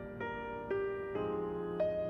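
Background music: a slow piano melody, a new note struck about every half second and left ringing.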